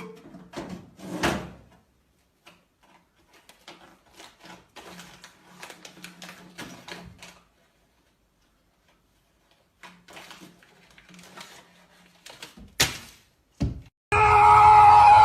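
Scattered knocks, clicks and rustling over a faint steady hum, with one sharp loud knock, then loud music cuts in suddenly near the end.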